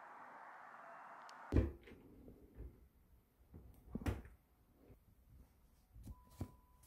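Wardrobe door opening with a clunk about a second and a half in, then hands rummaging through folded clothes on the shelves with a few soft knocks.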